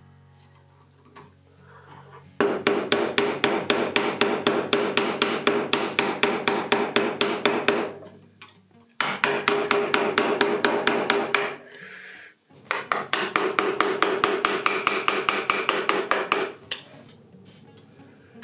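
Steel chisel being tapped rapidly to chop a small mortise into a hardwood leg, in three runs of fast, even strikes with a slight ring, separated by short pauses.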